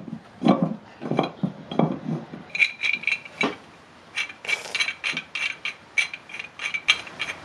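Restored antique F. Lassetter & Co railway wrench worked by hand, giving metal clicks and clinks. A few duller knocks come first, then a quicker run of sharp clicks with a light metallic ring.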